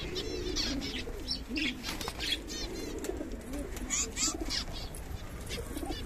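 Domestic pigeons cooing, with quick high chirps from small cage birds scattered over the cooing.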